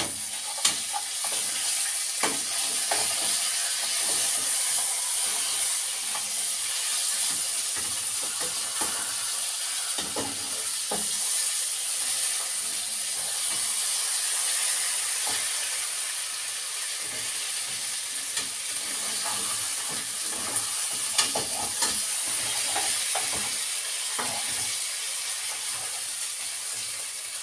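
Salmon fillet sizzling steadily as it fries in a pan, just turned over, with a few sharp clicks of a utensil against the pan.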